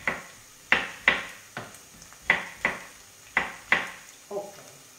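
Kitchen knife chopping tomatoes on a wooden cutting board: a string of sharp knocks of the blade on the wood, often in pairs.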